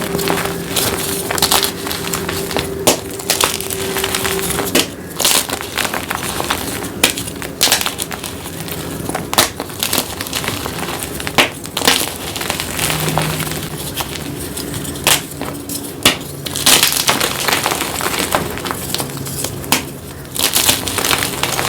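Gym chalk being crushed and crumbled: a continuous dry, crunchy crackling with sharp, glassy snaps every second or two.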